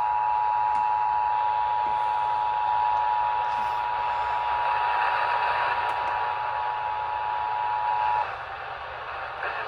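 Emergency Alert System two-tone attention signal, a steady chord of two tones heard over the radio with a background hiss. It cuts off about eight seconds in, leaving the hiss.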